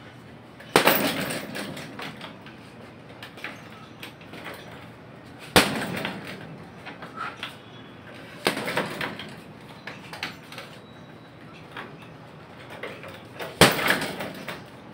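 Boxing gloves striking a hanging heavy punching bag: four hard punches spaced several seconds apart, each trailing off over about a second, with lighter taps between.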